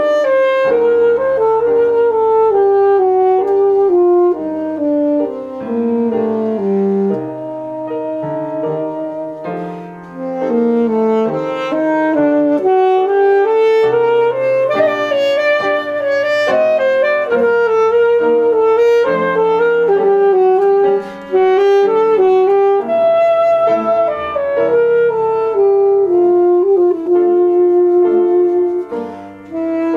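Alto saxophone playing a slow, mournful melody of long held notes over piano accompaniment, with short breaks between phrases about ten seconds in and near the end.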